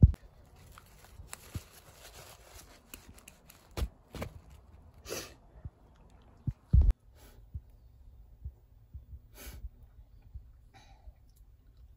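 A person sniffling twice through a nose stuffed up with rhinitis. Handling knocks and clicks sound around the sniffs, with a loud knock at the very start and another about seven seconds in.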